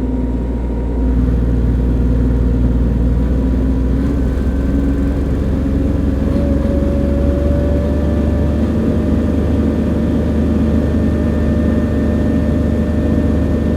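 Perkins 403D-11 three-cylinder diesel engine of a Lincoln Dual Maverick 450 welder running. It gets louder about a second in, then slowly rises in speed over the next few seconds and holds there, as the engine raises its RPM to meet the welding output.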